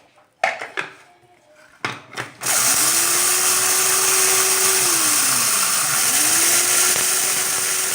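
A few clicks and knocks as the electric grinder is handled. About two and a half seconds in, its motor starts grinding toasted flaxseed. The whine dips in pitch and climbs back up again around five to six seconds.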